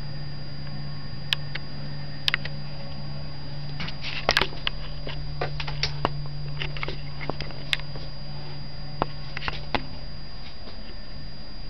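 Steady low hum with a thin constant high whine, under scattered sharp clicks and taps, several in a quick cluster about four seconds in.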